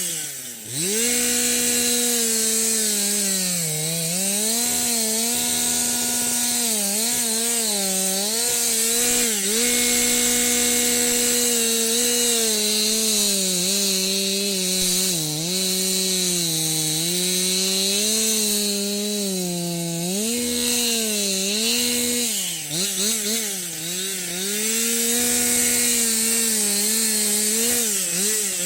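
Chainsaw running near full throttle while cutting wood. Its engine pitch sags each time the chain bites and picks back up again, several times over, with the deepest dips near the start and about three-quarters of the way through.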